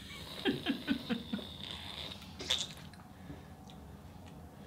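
A woman's soft laughter, a quick run of about five short ha-ha pulses, followed about two and a half seconds in by a brief breathy or slurping sound.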